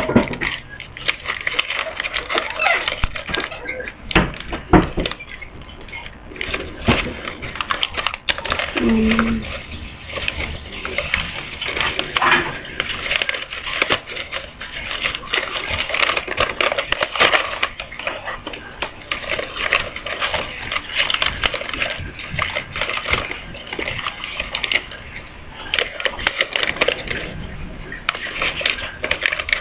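Sheet of paper being folded and creased by hand close to the microphone: continuous irregular rustling and crinkling.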